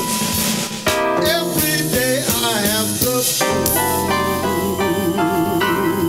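Blues band music with drums and keyboard, no words, the band settling a little over halfway in onto one long held, wavering note.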